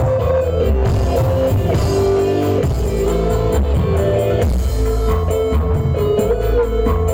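Loud music played through a sound system at a sound check, with melodic notes over heavy bass.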